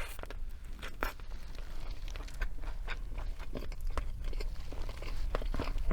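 Close-miked chewing of a bite of Burger King Whopper: a run of short, irregular mouth clicks and squelches.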